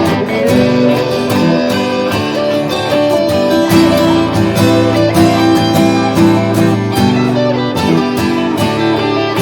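Band playing an instrumental passage: strummed guitars with a fiddle playing over them.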